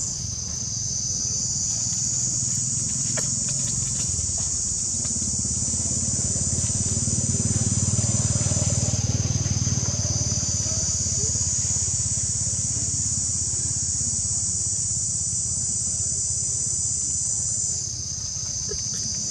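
Steady high-pitched insect chorus, shifting slightly in pitch a few times, over a low steady rumble.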